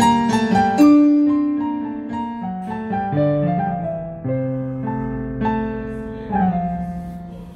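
Yamaha PSR-A5000 arranger keyboard's Cocktail Piano voice playing its demo phrase: a gentle piano melody over chords, struck about once a second and left to ring and fade. The last chord comes about six seconds in and dies away.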